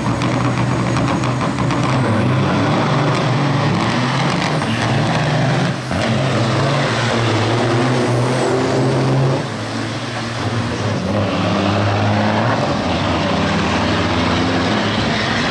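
Semi-truck diesel engines at full throttle, pulling away hard with trailers loaded to 60,000 pounds in a drag race. The engine note steps up and down several times, with short breaks about six seconds in and again near ten seconds.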